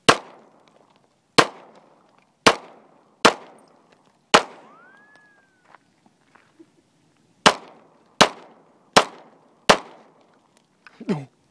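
Smith & Wesson handgun fired nine times: five shots about a second apart, a pause of about three seconds, then four quicker shots. Each crack is followed by a short echo tail, and a brief whistling tone rises and falls just after the fifth shot.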